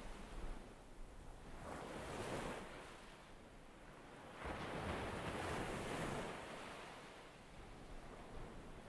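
Ocean surf, rising and falling in slow swells.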